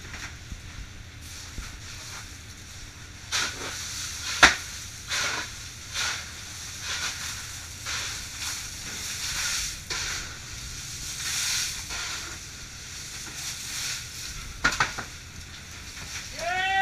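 Irregular crunching and scraping of fish and ice being packed in a fishing boat's fish hold, with two sharp knocks, over a steady low hum. A brief pitched squeak comes at the very end.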